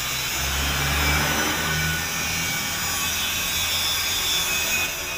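A motor vehicle engine running with a strong hiss over it, its low note wavering in the first couple of seconds, then holding steady and easing off near the end.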